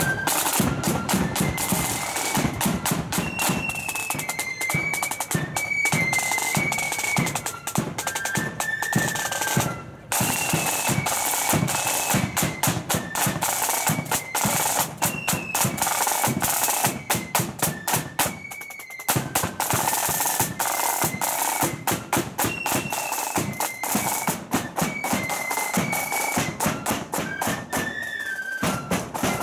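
Marching flute band playing a tune: flutes carry a high melody over rapid side-drum rolls and beats. The music breaks off briefly twice, about ten and nineteen seconds in.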